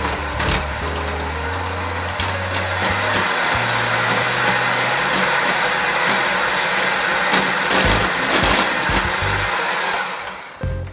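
Electric hand mixer whipping heavy cream in a glass bowl, a steady motor whir with the beaters churning the cream. The motor stops shortly before the end.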